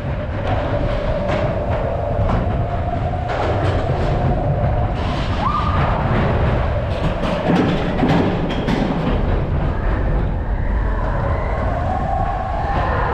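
A Matterhorn Bobsleds coaster car rumbling along its tubular steel track, with repeated clacks and knocks from the wheels. A wavering high tone sounds over it, rising sharply once about five and a half seconds in.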